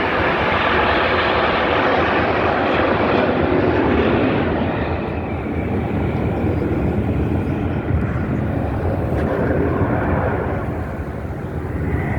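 Loud rushing engine noise of airplanes flying past overhead. It is strongest in the first five seconds, then eases a little.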